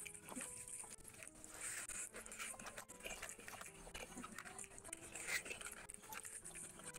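Close-miked eating: fingers squishing rice and curry together, with wet chewing and smacking of the mouthful. It comes as a run of short, irregular clicks and crackles.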